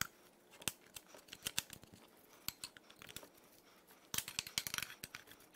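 Faint metal clicks and scrapes of screwdrivers prying around the input shaft bearing in the front of a Mazda Miata 5-speed manual transmission case, with a denser run of scraping about four seconds in.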